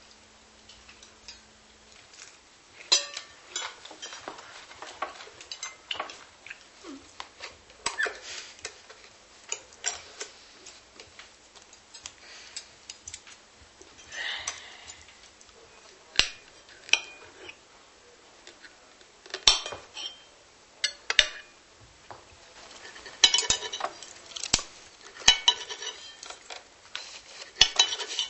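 Dishes and cutlery clinking and knocking at irregular intervals, with a few sharper clatters among lighter clinks.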